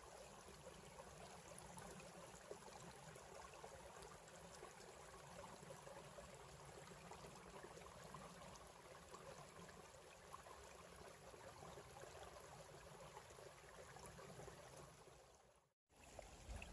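Faint steady trickle of a shallow woodland creek. The sound cuts out to complete silence for a moment about a second before the end.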